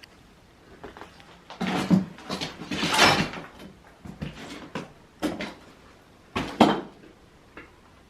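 Irregular wooden knocks, clatter and scraping as boards are pulled and handled during demolition work. The loudest crash is about three seconds in and a sharp knock comes near the end.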